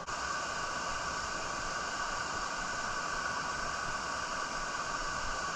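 Steady rushing of creek water pouring over a small dam, an even hiss-like roar with no breaks.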